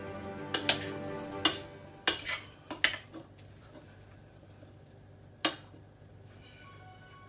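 A spoon knocking and clinking against a saucepan while peas and sweetcorn are mixed: a quick run of sharp knocks in the first three seconds, then one more about five and a half seconds in. Background music fades out during the first two seconds.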